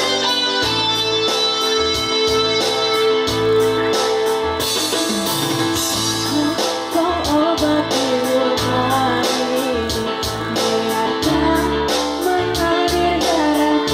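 Background music: a song with keyboard and guitar over a steady beat, with a sung melody coming in about halfway.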